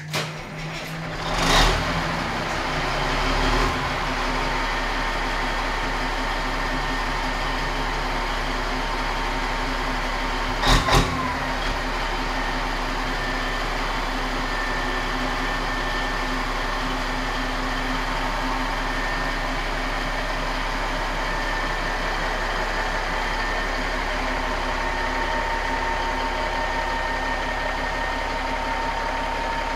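Marmon 57P semi truck's diesel engine starting up about a second and a half in, then running at a steady idle with a thin steady whine over it. Two sharp knocks come just over a third of the way through.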